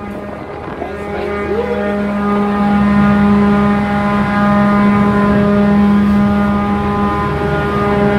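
Ship's onboard machinery running with a steady, even-pitched drone, growing louder over the first few seconds and then holding level.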